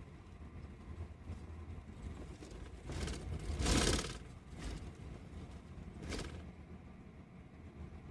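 Steady low rumble of a bus on the move, heard from inside the cabin, with a louder rush of noise swelling and fading around the four-second mark and a shorter one about six seconds in.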